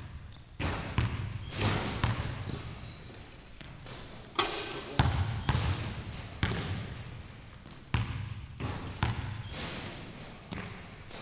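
Basketball bouncing on a hardwood gym floor and being passed and caught: a string of irregular thuds, each echoing in the large gym.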